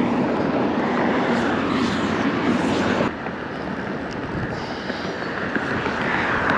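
Steady outdoor rushing noise with a low rumble, a little quieter from about three seconds in.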